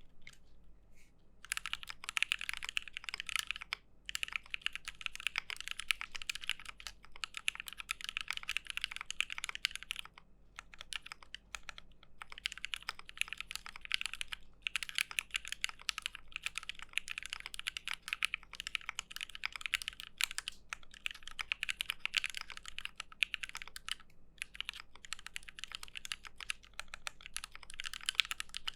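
Fast continuous typing on a top-mount Aquila custom mechanical keyboard with JWK Dogikon switches on a POM plate: dense keystroke clacks that start about a second and a half in and pause briefly a few times.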